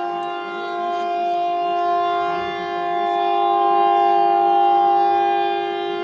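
Civil defence air raid siren sounding during a public siren test, holding a steady multi-pitched tone that swells slightly about halfway through.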